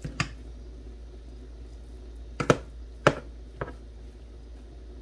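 Plastic rice paddle knocking against the side of a metal cooking pot while cooked rice is fluffed: a few sharp knocks, one just after the start and the rest close together a couple of seconds in.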